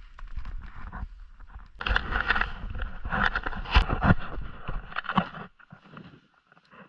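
Snow shovel scraping and crunching through packed snow in a series of irregular strokes, loudest in the middle and stopping a little before the end.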